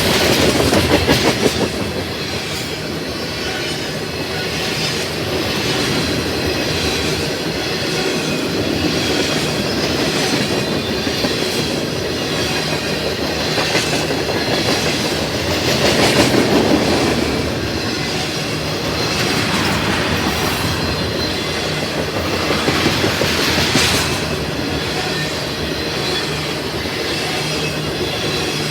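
CSX freight train of tank cars rolling past, its wheels clacking over the rail joints in a steady continuous rumble that swells in places.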